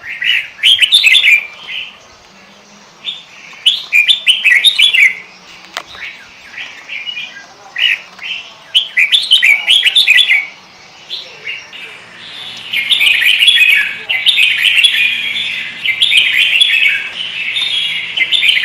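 Sooty-headed bulbul (kutilang) singing short bubbly, chirpy phrases with pauses between them, then from about twelve seconds in an unbroken run of rapid chattering song.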